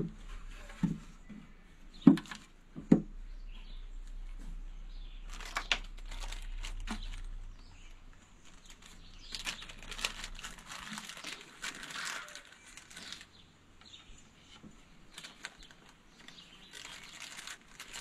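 A few sharp knocks as wooden beehive box parts are set down and handled, then a small plastic bag crinkling and rustling in two stretches.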